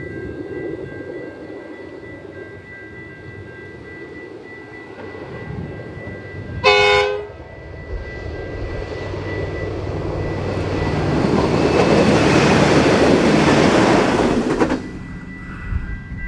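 V/Line Sprinter diesel railcars, a two-car set, approaching on a 1 in 50 climb and passing close by. A short horn blast comes about seven seconds in, then engine and wheel noise rises to a peak as the railcars go past and cuts off sharply near the end.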